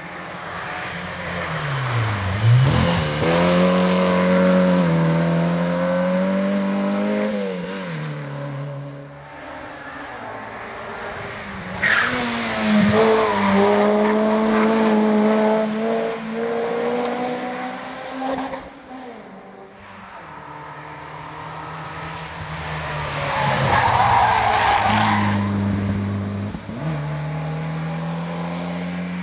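Racing cars on a hillclimb, three in turn, each driven hard through a bend. The engines rev high, the pitch stepping up and down with gear changes, and tyres squeal briefly.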